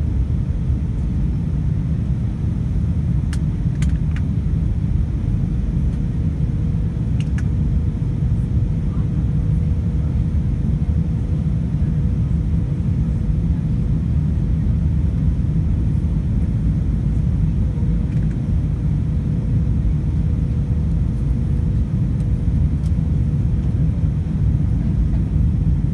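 Steady in-flight cabin noise of an Airbus A320-232: an even low rumble of airflow and its IAE V2500 engines, with a faint steady hum. A few faint ticks come a few seconds in.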